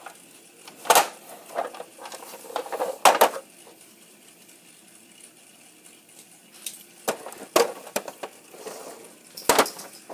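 Plastic dolls and toy pieces being handled in a toy dollhouse, giving irregular clacks and knocks. The loudest come about a second in and three seconds in, with a few more near the end.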